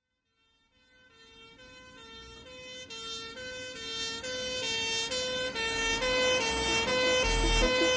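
Two-tone "nee-naw" emergency siren, switching back and forth between a higher and a lower pitch, each held under half a second, fading in and growing steadily louder as if approaching. Low thumps join in near the end.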